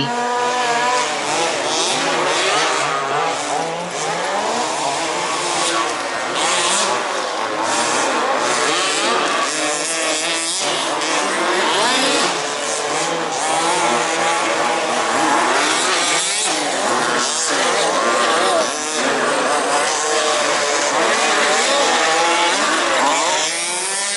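Several 1/5-scale off-road RC race buggies with small two-stroke petrol engines racing together, their high-pitched engines revving up and down and overlapping.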